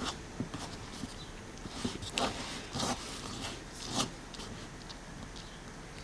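Hands rubbing and tossing hot, freshly steamed couscous semolina in a wooden bowl to separate the grains: a grainy rustling made of irregular scratchy swishes, a few stronger ones in the middle.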